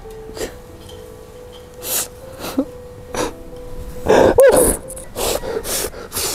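A man sniffling and sobbing, with repeated sharp sniffs and a loud wavering wail about four seconds in.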